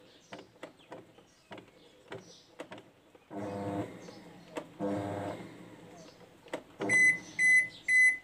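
Toshiba top-loading washing machine failing to start a wash. A few faint clicks come first, then two short electrical hums of about half a second each. Near the end its error alarm beeps high and repeatedly, about two beeps a second: the no-wash beeping fault that the repairer traces to the water-level pressure sensor once the lid lock switch and lid sensor check out.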